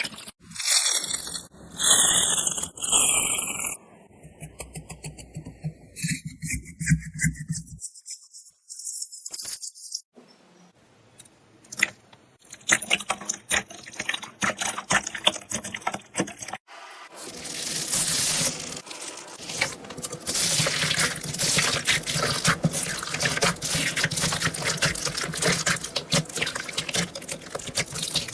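Close-miked crunching and crackling ASMR sounds, made up of many quick clicks, in several short clips that cut abruptly from one to the next.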